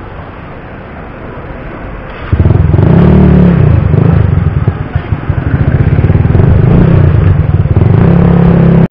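Small motorcycle engine pulling away from a standstill. About two seconds in it suddenly gets loud as the throttle opens, eases off briefly midway, then pulls again and runs steadily.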